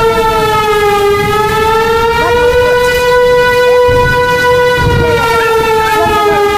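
Civil defence warning siren sounding a steady wail that sags slightly in pitch and recovers twice, over a low rumble.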